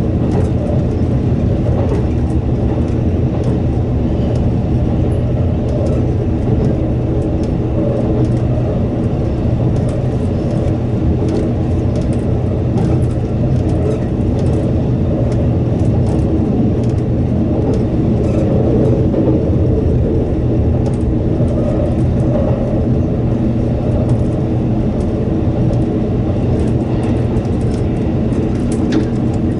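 783-series electric express train running at speed through a tunnel: a steady rumble of wheels and running gear with a low hum, and faint scattered clicks.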